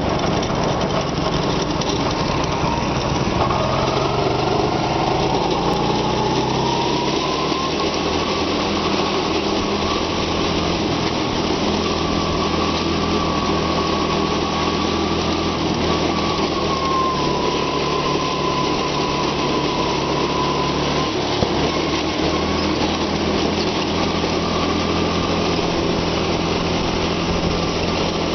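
Go-kart engine running steadily at speed. Its whine rises in pitch a few seconds in and then holds, with a brief dip about two-thirds of the way through.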